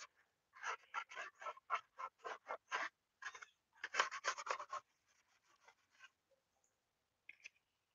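Scuff pad rubbed by hand over a football helmet's plastic shell in quick scrubbing strokes, about four a second, dulling the shiny spots so the paint will stick; the strokes turn faint about five seconds in and stop.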